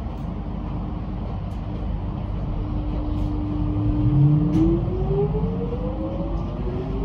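Metro X'Trapolis electric train heard from inside the carriage as it pulls away from a station. There is a low rumble under a steady electric hum, and about four and a half seconds in the traction motor whine starts rising in pitch, several tones climbing together as the train gathers speed.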